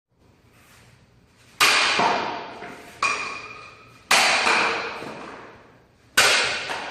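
Four sharp struck, ringing hits, unevenly spaced, each one dying away over about a second.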